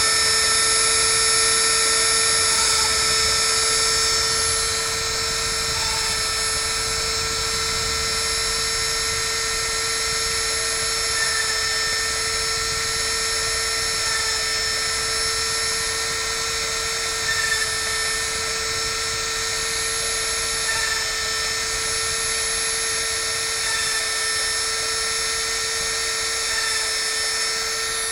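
Small high-speed rotary spindle of a homemade CNC mill running with a steady high-pitched whine while it drills through-holes in a copper PCB. Small brief changes in the whine come every three seconds or so as it works from hole to hole.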